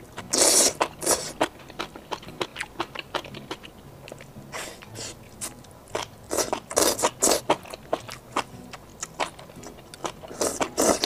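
Close-miked eating of chili-oil-coated enoki mushrooms: wet slurps as the strands are drawn off a skewer into the mouth, then crisp, crunchy chewing made of many small clicks. The loudest slurps come about half a second in, around five and seven seconds in, and near the end.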